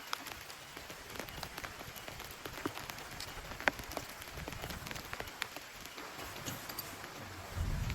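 Rain falling steadily, with single drops landing close by as scattered sharp taps. A low rumble comes in near the end.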